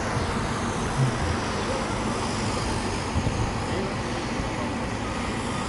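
Komatsu backhoe loader's diesel engine running steadily, with short low bumps about a second and about three seconds in.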